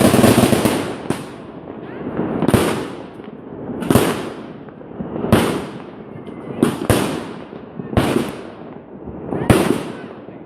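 A large consumer fireworks cake firing shot after shot: a dense crackle at the start, then a sharp bang about every second and a half, with two close together about seven seconds in, each followed by a hissing, crackling tail that fades out.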